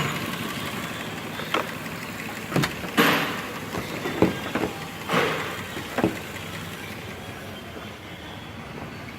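Scattered short clicks and knocks, about eight at irregular intervals in the first six seconds, over a faint steady hum; the last few seconds are quieter.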